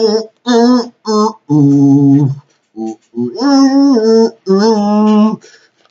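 A voice singing a wordless tune in a string of short, separate held notes, with one lower note about a second and a half in.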